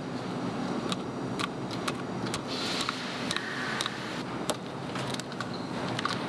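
Small curved scissors snipping excess flash off a molded silicone brush: a string of short sharp clicks, roughly one every half second, over a steady factory machinery hum.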